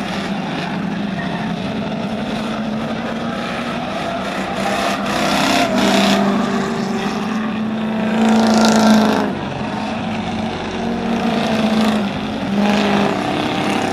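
Several Ford Crown Victoria V8 race cars running at speed, their engine notes rising and falling as they accelerate and pass. The loudest swell comes about eight to nine seconds in, when a car goes by close.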